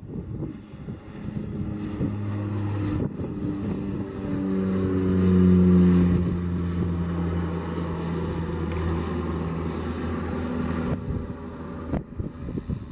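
Cessna 208 Caravan single-engine turboprop climbing out after take-off and passing the listener: a steady propeller and turbine drone whose pitch falls as it goes by, loudest about halfway through.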